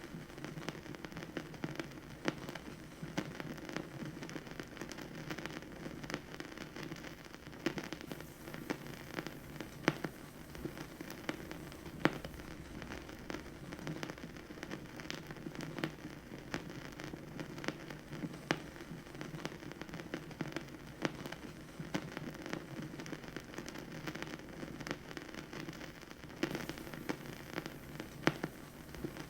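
Vinyl record surface noise with no music: a dense, irregular crackle of small clicks and a few louder pops over a steady low rumble from the spinning record.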